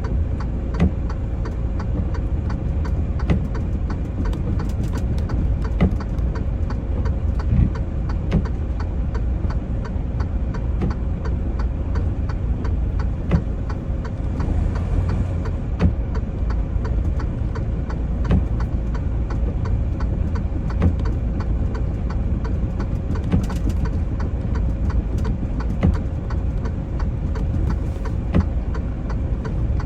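Semi-truck's diesel engine running as a steady low rumble, with frequent short knocks and rattles.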